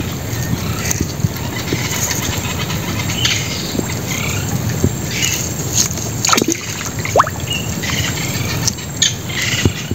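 Frogs croaking, with scattered short clicks and splashes as hands work the wet netting of a fish trap standing in water.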